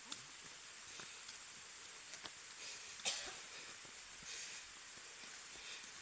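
Footsteps on dry leaf litter of a forest path, about one a second, over a steady high hiss. A sharper, louder sound about three seconds in.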